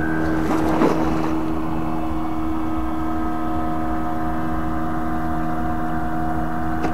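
An engine running steadily at one unchanging pitch, a continuous drone.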